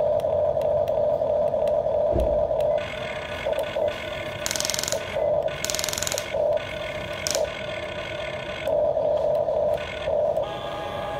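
Huina RC toy excavator's small electric gear motors whining as the boom, arm and bucket move: steady at first, then in short start-stop spurts. A dull thump comes about two seconds in, and two short harsh bursts of noise come a little after the middle.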